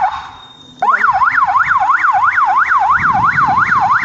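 Aftermarket three-tone electronic police siren fitted to an electric bicycle, sounding a fast rising-and-falling wail about four sweeps a second. It cuts out just after the start and comes back on a little under a second in, staying on after that.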